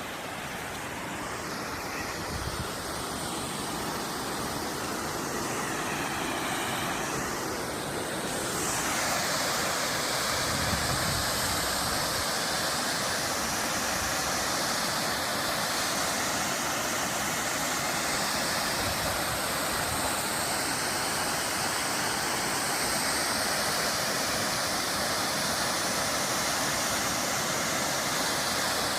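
Waterfall: a steady rush of falling water, swelling louder over the first nine seconds or so and then holding steady.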